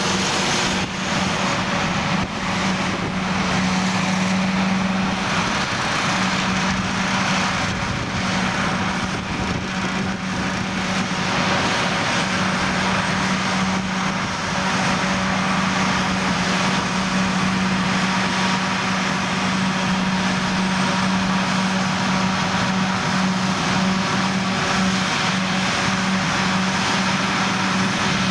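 John Deere 7450 self-propelled forage harvester chopping maize and blowing it into a trailer, its engine and chopping gear running at a steady drone with a constant low tone. The John Deere 7930 tractor pulling the trailer alongside runs with it.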